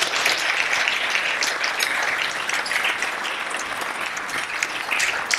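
Audience applauding: a steady round of clapping from a roomful of people.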